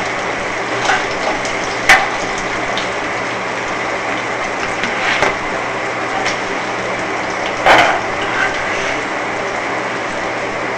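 Hot oil sizzling steadily in a frying pan with tilapia fillets, with a few sharp clicks of a spatula against the pan, the loudest about two seconds in and another near eight seconds.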